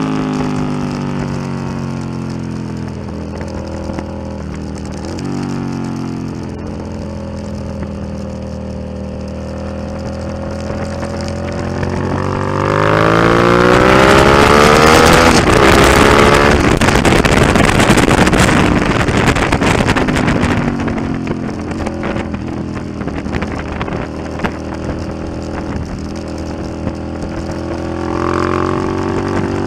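Suzuki SV650's 645 cc V-twin with an aftermarket Delkevic exhaust, heard onboard, accelerating and slowing as the bike laps the track, its note rising and falling. About halfway through, a loud rush of wind on the microphone at top speed drowns the engine for several seconds, then the note falls away again.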